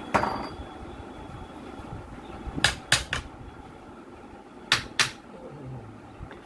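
A hammer knocking on the metal V-belt pulley of an electric motor's shaft: six sharp metallic knocks, one ringing briefly, then three in quick succession and a final pair.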